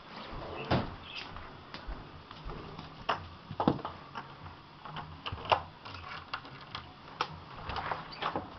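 Footsteps crunching in shallow wet snow: irregular sharp crunches, a few each second, with some louder ones.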